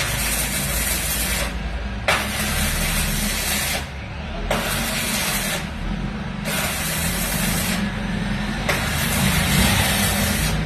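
Arc welding: a crackling hiss that starts and stops in about six bursts of one to two seconds with short breaks between, over a steady low hum.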